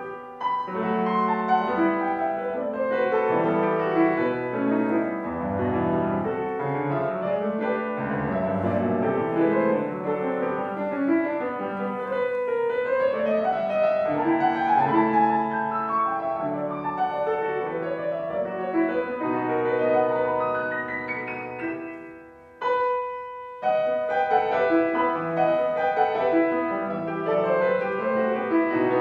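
Piano playing a fast classical piece in dense runs and chords. About twenty seconds in a run climbs upward, breaks off briefly into a single held chord, then the playing picks up again.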